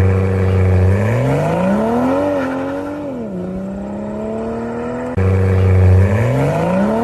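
Toyota Supra MK5 engine revving: held steady, then climbing in pitch and dropping back, with the same recording starting over about five seconds in.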